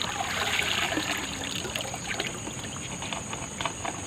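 Water trickling and splashing as a plastic-bottle prawn trap is lifted out of the river and drained, a little louder in the first second.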